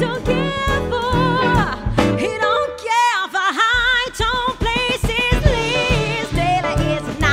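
Music: a singer holds wavering, vibrato-laden notes over a band with a steady pulsing bass. The bass drops out for about a second near the middle, leaving the voice and the higher instruments alone.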